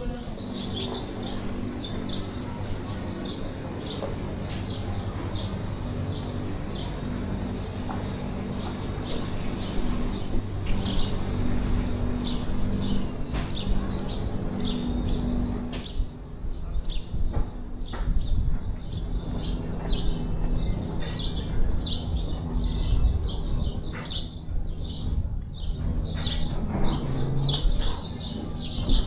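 Small birds chirping and twittering in many short, quick calls over a steady low background rumble.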